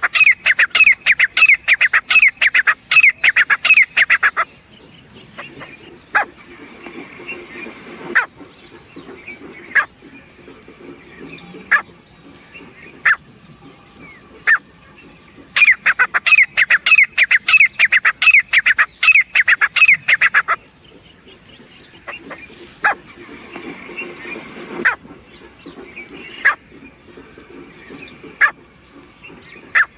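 Grey francolin calling: two bouts of loud, rapidly repeated short falling notes, several a second and each bout lasting about four to five seconds, one at the start and one about halfway through. Single sharp notes are scattered in between.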